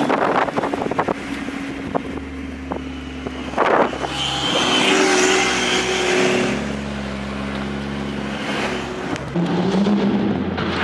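Car engine running while driving, heard from inside the car. Several sharp clicks come in the first few seconds, and the engine note steps up near the end.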